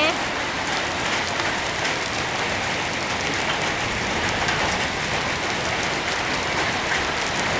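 Heavy summer-storm downpour with hailstones falling: a steady rush of rain, with many small ticks of hail striking hard surfaces.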